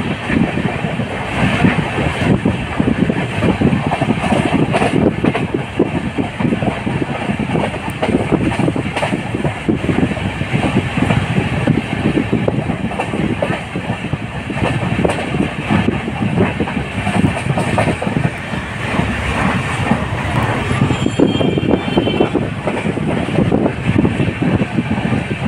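Sleeper coach of a moving Indian Railways express train running at speed: a steady rumble of wheels on track with rhythmic clickety-clack over the rail joints.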